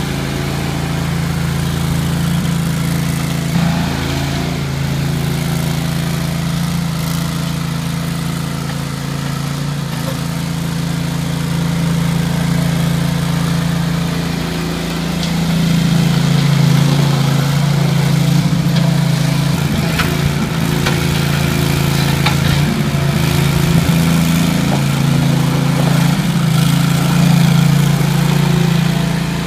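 Ramrod 750A stand-on mini skid loader's engine running steadily as the machine is driven about, swelling and easing a little in level. A few short clicks and knocks sound about two-thirds of the way in.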